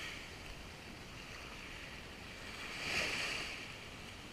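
Gentle surf on a calm sea: a low wash of small waves, with one wave swelling up and washing in about three seconds in.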